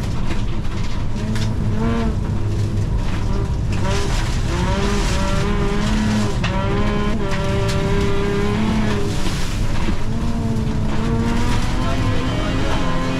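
Bilcross race car's engine heard from inside the stripped cabin, the engine note rising and dropping back several times through gear changes, over a constant rumble of tyre and road noise.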